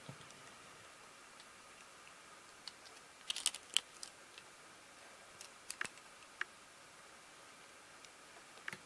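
A few small, irregular clicks and taps of handling, with a quick cluster of sharper ones about three and a half seconds in, over faint hiss.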